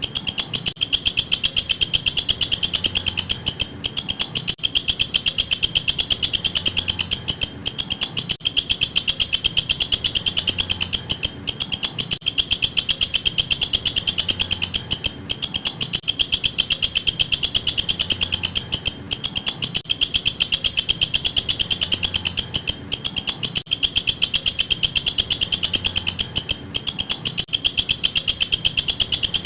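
Walang kecek katydid calling: a fast, steady train of high, clicky chirps that breaks off briefly about every four seconds and then resumes.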